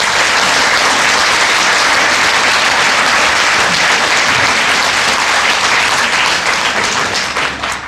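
Audience applauding after a reading, a steady wash of clapping that fades out near the end.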